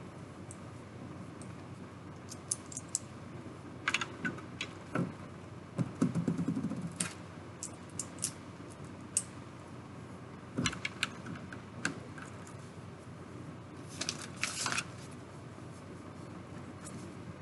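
Small plastic Lego pieces clicking and rattling as they are handled, in scattered clusters of light ticks, with a brief soft rustle about six seconds in.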